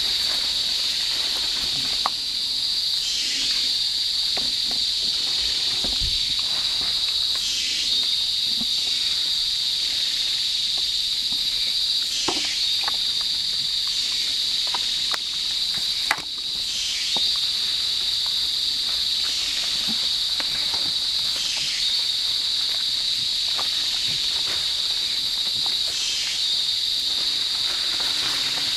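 Rainforest insect chorus: a steady, high-pitched drone that swells into a pulsing burst about every four to five seconds, with a few faint clicks beneath.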